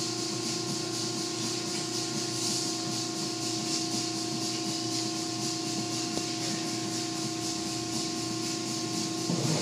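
Automatic car wash heard from inside the car: a steady hiss of water spraying on the glass and cloth wash strips rubbing over the hood, under a steady machine hum. Near the end the hum stops and the washing gets louder.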